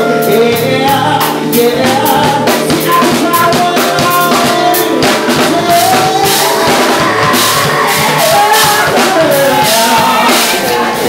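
Live soul band performing: a male vocalist singing into a microphone over a drum kit and backing band.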